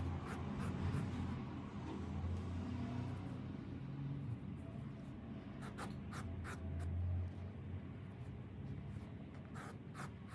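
Yarn being drawn by hand through the edge of a wool carpet while overcasting it: a scratchy rustling, with clusters of short scraping clicks about six seconds in and again near the end, over a steady low hum.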